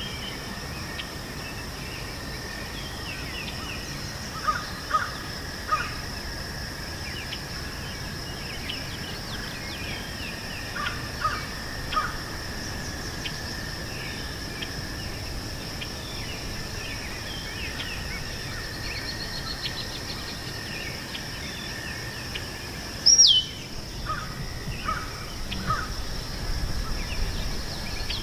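Meadow ambience: insects trilling steadily at two high pitches, scattered small-bird chirps, a bird calling in quick runs of three several times, and one loud down-slurred whistle near the end.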